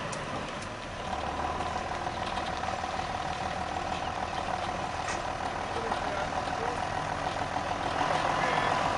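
Farm tractor engine running steadily as it approaches towing a grain cart, with a steady whine over the engine noise, growing gradually louder.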